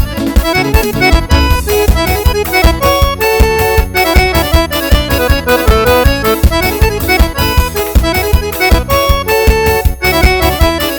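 Instrumental arrasta-pé (forró) backing track: an accordion plays the melody over a fast, steady beat.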